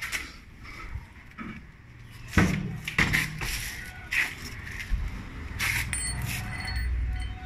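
Knocks and clinks of hand tools and motorcycle parts being handled during work on the front fork, the loudest about two and a half seconds in, over a rumble of handling noise.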